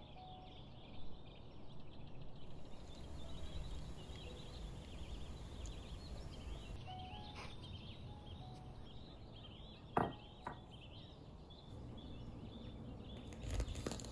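Outdoor ambience: many small birds chirping and twittering over a low steady rumble. A sharp knock sounds about ten seconds in, followed by a smaller one.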